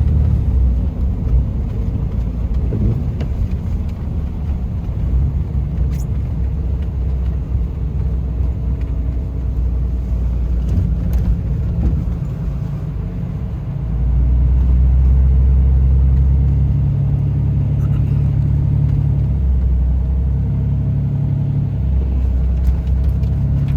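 Cummins turbo-diesel pickup engine running steadily while driving. It grows louder for a few seconds about two-thirds of the way through, as under more throttle, then settles back.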